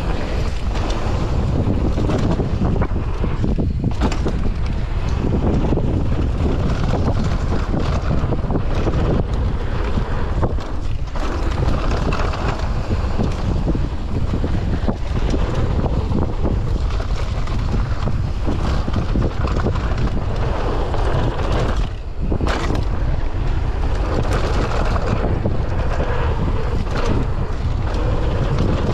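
Wind buffeting the microphone on a mountain bike riding downhill at speed, with tyres rolling over a dirt trail and frequent short knocks and rattles from the bike over bumps.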